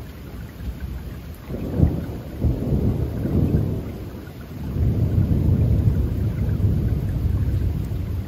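Rolling thunder over steady rain. A low rumble builds about a second and a half in with a sharp peak, dies down, then swells again about halfway through and runs on.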